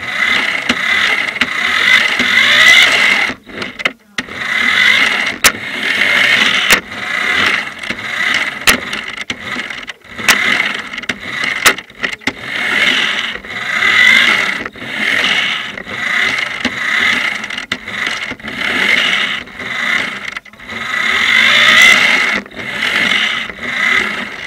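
Radio-controlled car's motor and drivetrain heard from a camera mounted on the car, running in repeated surges of a second or two as the throttle is worked on and off. Sharp clicks and knocks from the chassis come through here and there.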